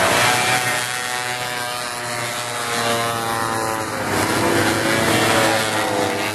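Racing snowmobile engines running at high revs as sleds pass, the pitch sliding down after the loudest moment at the start, then swelling again about three seconds in as more come by.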